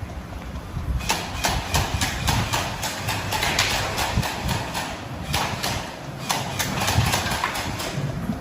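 Airsoft guns firing during a game: a rapid, uneven run of sharp shots, several a second, starting about a second in and going on almost to the end.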